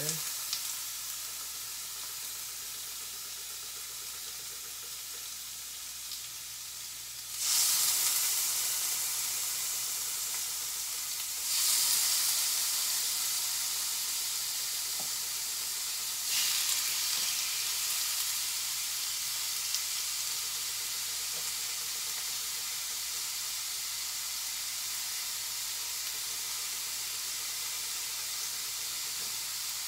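Pork pieces sizzling in a hot cast-iron skillet. The sizzle jumps suddenly louder three times as more pieces are laid in with tongs, easing back to a steady sizzle after each.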